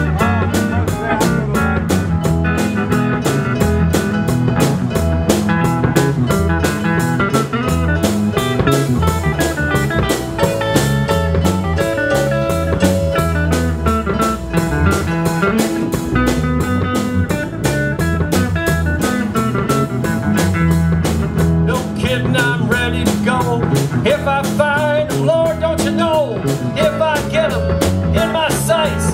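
Live blues band playing without vocals: electric guitar and bass guitar over a drum kit with a steady beat, with wavering, bent notes near the end.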